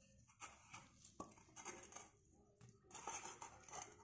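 Near silence with faint handling sounds: a few soft knocks and taps and one sharper click about a second in, as whole boiled potatoes are lifted from a steel bowl and set into a stone mortar.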